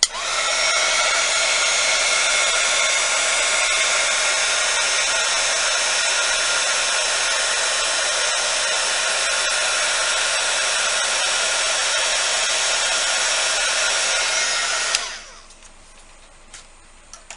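Handheld hot-air blower (a heat gun or hair dryer) running steadily for about fifteen seconds with a whining fan note, then switched off and dying away. It is blowing across wet epoxy resin to push the white pigment into waves.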